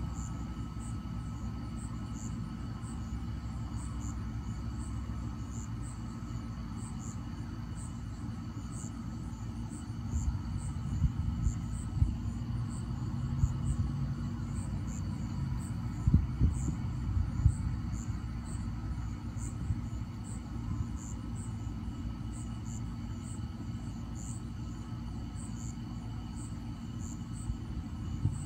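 Night insects chirping in a short, high-pitched pulse repeated about every two-thirds of a second, over a low steady rumble. In the middle, a few louder bumps of the phone being handled or moved stand out.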